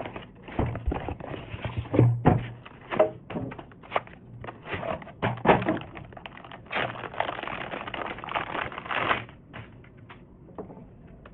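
Irregular clicks, taps and knocks of hard plastic and metal computer parts being handled and fitted by hand, with a longer stretch of steady scraping noise about two-thirds of the way in, then only a few faint ticks.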